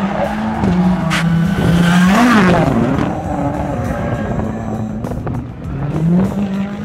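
Turbocharged rallycross race car engines running at high revs, the pitch stepping up and down with throttle and gear changes. About two seconds in there is a quick rev up and down, with a rush of tyre and turbo noise.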